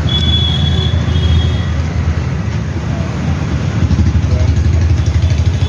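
Steady low rumble of motor vehicles running, with a thin high tone in the first second and a half.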